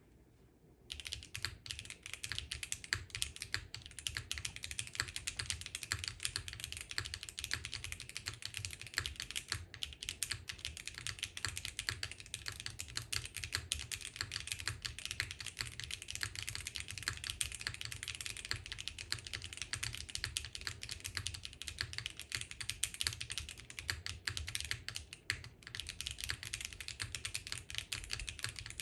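Continuous fast typing on a gasket-mounted F1-8K mechanical keyboard with lubed Haimu x Geon White tactile switches, an aluminium plate and GMK keycaps: a dense run of key clacks that starts about a second in, with brief pauses near ten and twenty-five seconds.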